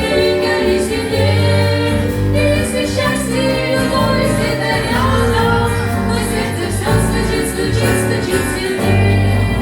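Russian-language Christian wedding song: voices singing together over an instrumental backing with a strong, shifting bass line.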